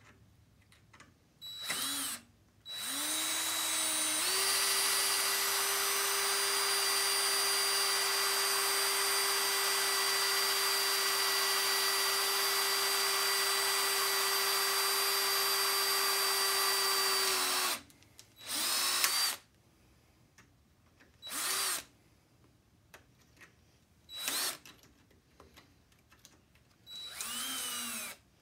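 Cordless drill boring out a rusted steel screw head with a bit the size of the screw, to free a corroded window pivot bar. A short burst, then the drill spins up into one long steady run of about thirteen seconds, followed by several short bursts that rise and fall in pitch as the trigger is pulsed.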